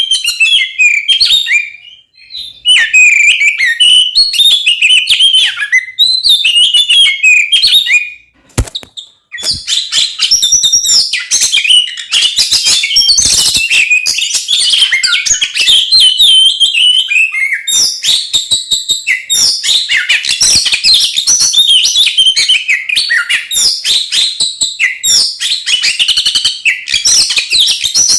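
Oriental magpie-robin (kacer) singing loudly in fast, varied whistles and chatter, the aggressive fighting song used to provoke other kacer. The song breaks off briefly about two seconds in and again around eight seconds in, where there is a single sharp click, then runs on without a pause.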